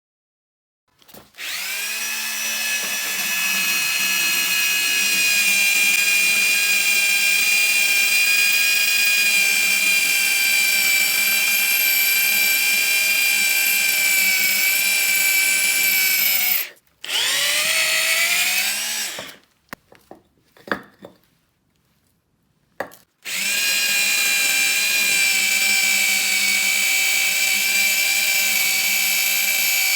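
Repaired Hitachi 24V cordless drill running free. It spins up about a second in and runs at a steady whine, stops, briefly runs up again with a rising pitch, gives a few short blips, then runs steadily again.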